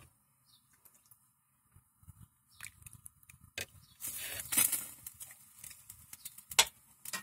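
Pot of soup broth on the boil with scattered small clicks and knocks. About four seconds in, a metal bowl dips into the liquid with a short rush of noise lasting about a second, and a single sharp click follows near the end.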